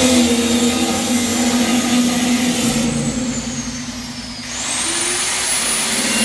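Power tool motor running loud and steady. About three seconds in it winds down with a falling whine, then spins back up with a rising whine about a second and a half later.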